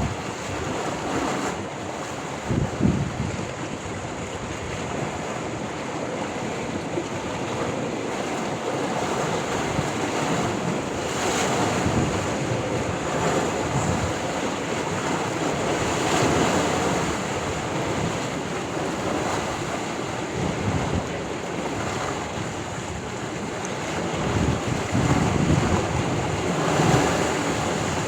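Sea waves washing onto the shore in a continuous surging wash that swells and eases, with wind buffeting the microphone in low rumbling gusts near the start and again near the end.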